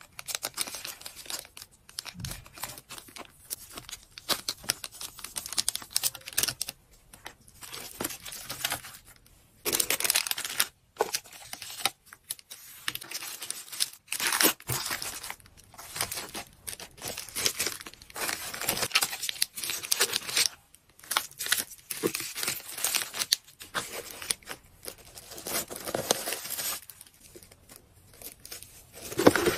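Plastic and paper packaging crinkling and rustling in irregular bursts as it is handled and packed into a cardboard mailer box.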